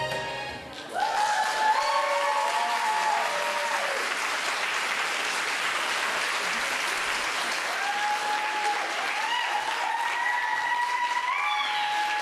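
Audience applauding, with cheering voices calling out over the clapping; the applause starts about a second in as the music stops.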